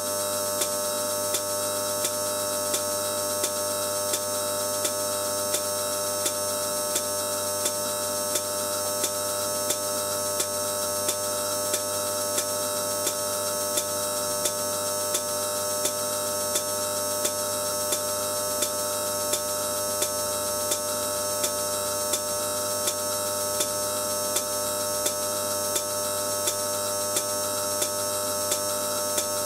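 High-voltage discharge at an electrode tip in electrolyte, running steadily as a continuous electrical buzz and hiss with several steady pitches in it. A light tick repeats evenly, about one and a half times a second.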